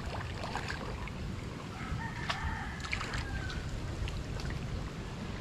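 A rooster crows once, about two seconds in, one call lasting about a second and a half. Under it is a steady low rush of water stirred by people wading through a river with a net.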